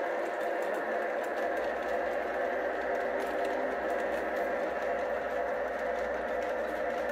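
O-gauge model freight train running along its track: a steady whir from the motor and gears, with the wheels rattling and scattered light clicks.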